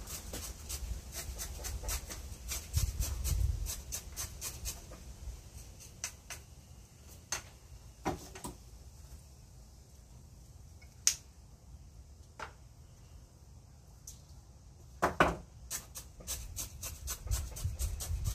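A bamboo chopstick jabbing and working gritty bonsai soil and red river rock down around the roots in a pot. It makes irregular light clicks and scratches of grit, with a few sharper knocks, the loudest around the middle and about two-thirds of the way in.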